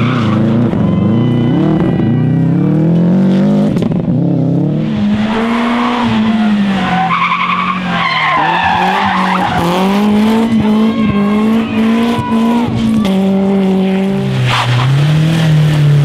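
Rally cars driven hard through a tarmac bend one after another, first a Subaru Impreza, then a BMW 3 Series. Their engines rise and fall in pitch through several gear changes, with tyres skidding and squealing around the middle.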